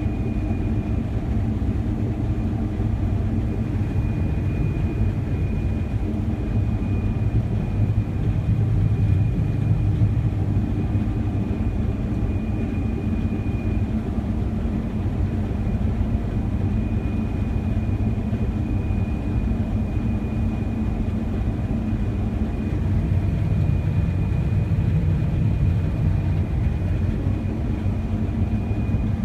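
Combine harvester running steadily while cutting wheat: a continuous low engine drone with a thin, steady high whine above it.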